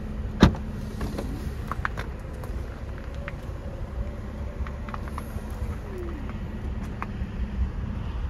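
Power liftgate of a 2023 GMC Acadia Denali opening: the latch releases with a sharp click about half a second in, then a faint motor whine runs as the gate rises and falls away about six seconds in, with a few small clicks along the way.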